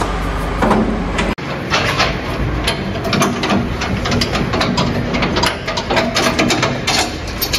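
An engine running steadily, with frequent sharp clicks and knocks over it and an abrupt break about a second in.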